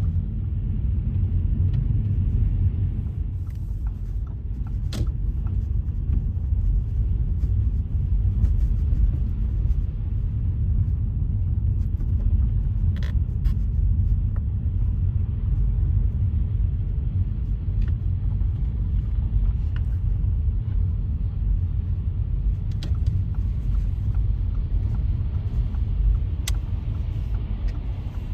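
Steady low rumble of a car driving on wet, slushy road, with a few faint clicks.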